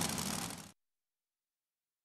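Modified pulling tractor's engines idling, fading out within the first second, then complete silence.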